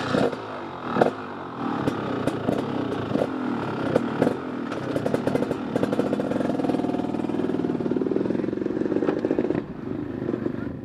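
Dirt bike engine running, with knocks and clatter in the first few seconds, then a steady engine note that drops away near the end.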